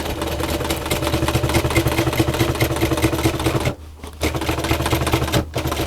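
Electric sewing machine stitching at a fast, even rate, its motor humming steadily; it stops for about half a second a little under four seconds in, then runs on with another brief break near the end.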